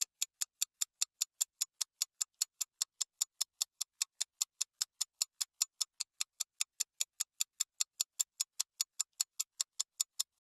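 Steady, even clock-like ticking, about five ticks a second: a ticking sound effect that marks fast-forwarded footage.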